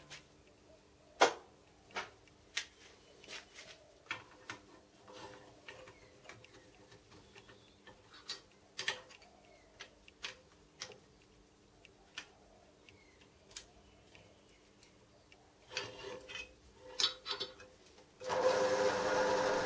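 Scattered metal clicks, knocks and rubbing as a drill press vise and a small aluminium part are shifted and clamped on the cast iron drill press table. A steady, louder hum starts near the end.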